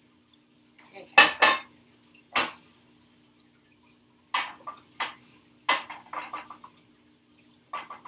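Metal frying pans and a cooking utensil clanking on a gas stove's grates and in the pans: two loud clanks about a second in and one more a second later, then a cluster of quicker clinks and scrapes from about four seconds on, over a faint steady hum.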